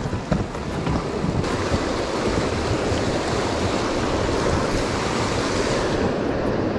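A river swollen with spring runoff, running fast over riffles and rocks past a small raft: a steady rush of water, with some wind buffeting the microphone.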